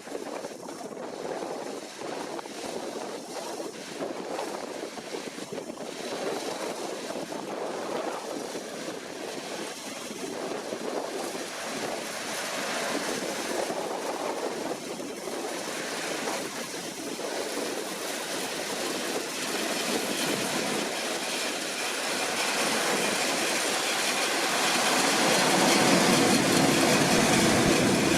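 Deutz-Fahr C9306TS combine harvester running as it harvests, a steady machine noise that grows gradually louder, with a steady hum coming through over the last few seconds.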